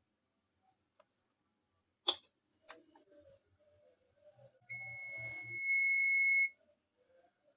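Two sharp clicks, then a steady electronic beep held for nearly two seconds before cutting off.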